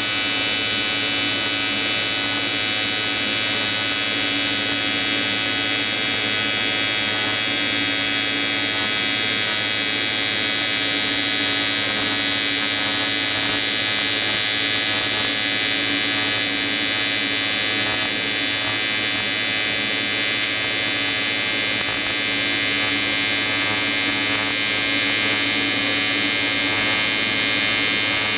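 AC TIG welding arc buzzing steadily and without a break, from an Everlast 325EXT on square-wave AC (frequency set between 100 and 150 Hz) welding an aluminium intercooler under pure argon.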